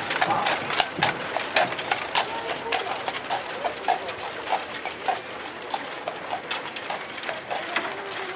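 Horse's hooves clip-clopping on the road as a horse-drawn carriage moves away, the knocks loudest at first and growing fainter.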